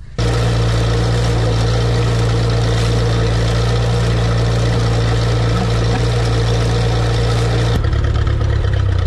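A vehicle engine running steadily and loud, close up, while seed is broadcast. It cuts in abruptly at the start, and its note changes suddenly about eight seconds in.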